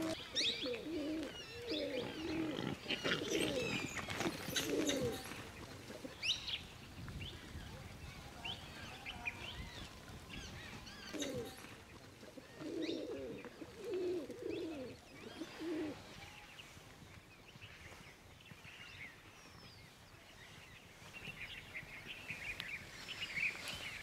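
Rock doves cooing: two bouts of low, repeated coos, one in the first few seconds and another about halfway through. Scattered high chirps of small birds run alongside.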